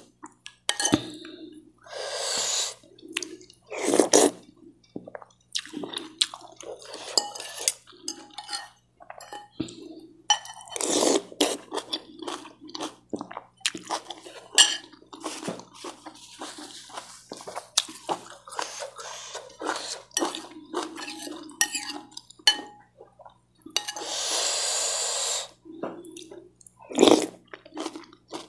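Eating soupy fried noodles: a metal spoon and fork clink and scrape against a ceramic bowl, between slurps of noodles and broth, the longest slurp about 24 seconds in.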